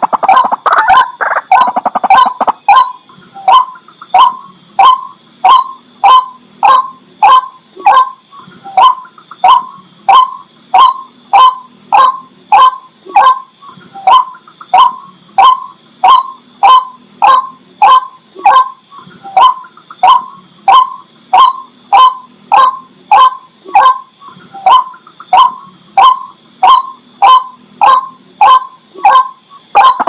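White-breasted waterhen calling: a fast jumble of calls for about the first two seconds, then one short note repeated steadily, nearly twice a second.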